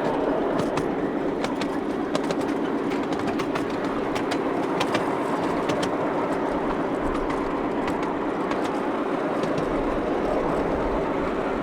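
Miniature railway train running with a passenger aboard: a steady drone with scattered short clicks from the wheels on the track.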